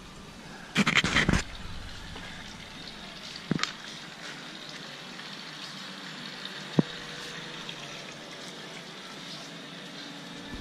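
Handling noise from a handheld camera being carried around: a short burst of rubbing about a second in, then two light knocks, over a steady faint outdoor hiss.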